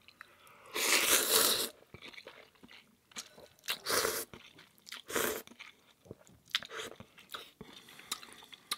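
A man slurping and chewing instant ramen noodles from chopsticks: a long slurp about a second in, another about four seconds in and a shorter one just after, then wet chewing with small clicks.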